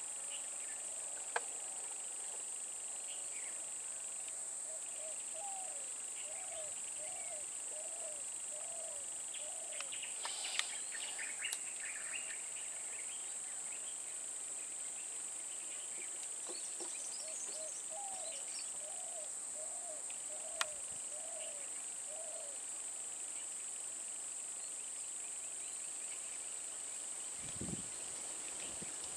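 Steady high-pitched insect drone in the forest. Twice, a bird calls a run of short repeated low notes, and a few sharp clicks stand out.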